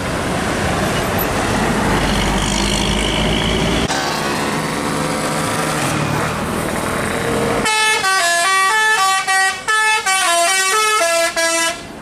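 Engine and road noise of a passing tour bus, then a bus telolet horn, a multi-tone musical air horn, playing a quick tune of stepped notes from about two-thirds of the way in, breaking off briefly a few times.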